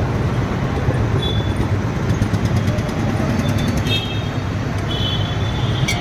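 A steady low rumble of street noise, with a few short, light metallic clinks over it about a second in and again from about four seconds on.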